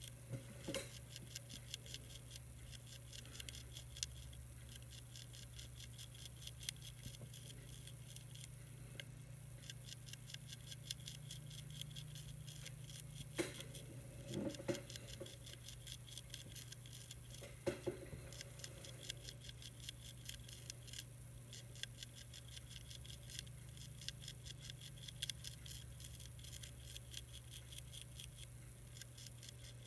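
Monarch caterpillar chewing a milkweed leaf: a rapid run of faint crunching clicks, with a few louder taps in the middle, over a steady low hum.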